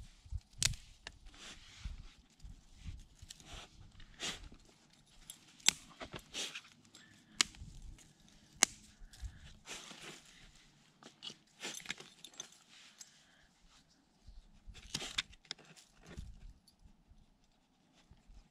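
Irregular rustling and crunching, like footsteps on a forest trail, mixed with sharp clicks and clinks of handled gear; it thins out near the end.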